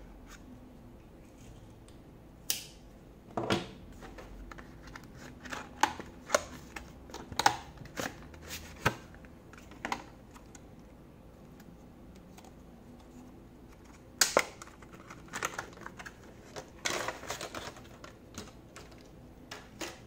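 Irregular sharp clicks, scrapes and crinkles of packaging being opened: a pocket knife slitting an SSD's cardboard box, then the drive handled in its clear plastic clamshell. The sounds come in two clusters separated by a quieter spell.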